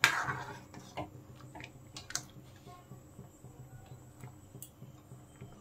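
Steel ladle clinking against a metal cooking pan as boiling dal is stirred: one sharp clink at the start, then a few faint taps, over a faint low hum.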